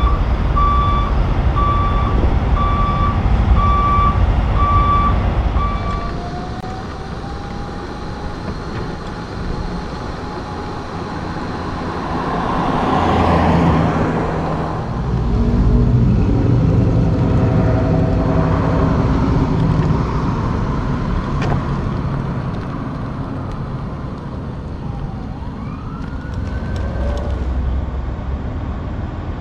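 Six-axle concrete pump truck's reverse alarm beeping steadily over its diesel engine, stopping about six seconds in. Then a logging truck passes on the road, louder around the middle, and heavy diesel truck engines run.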